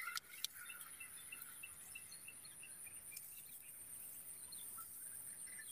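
Faint outdoor insect sound: a steady high-pitched drone with a faint chirp repeated about three times a second, and a couple of light clicks near the start.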